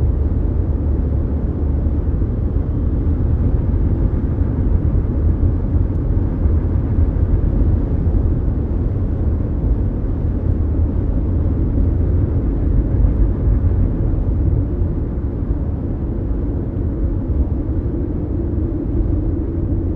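Mazda CX-5 small SUV at highway speed heard from inside the cabin: a steady low rumble of road and engine noise.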